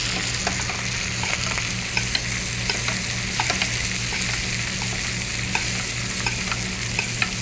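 Pan-seared chicken breasts sizzling in hot butter and oil as they are basted with the foaming butter, with a steady hiss and scattered small clicks and pops. A steady low hum runs underneath.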